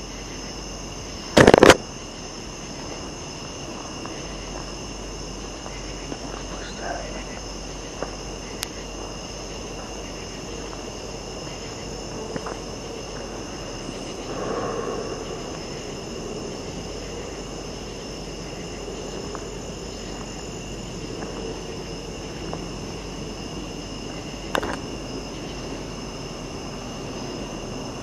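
Steady night chorus of crickets and other insects, several high continuous trills layered together. A loud brief burst of noise about a second and a half in, with a few faint clicks and rustles later.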